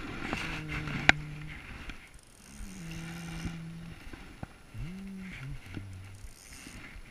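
A man's voice making several drawn-out wordless hums, each about a second long, one rising and then falling near the end. A sharp click sounds about a second in.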